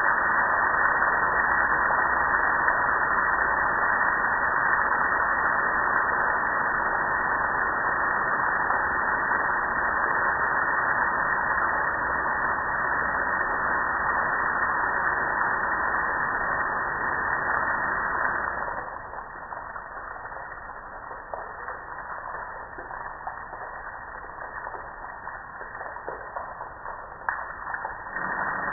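Water from a garden-hose spray nozzle on its shower setting splashing onto a gas grill's metal lid and panels: a steady rushing spatter that turns quieter about two-thirds of the way in and louder again near the end.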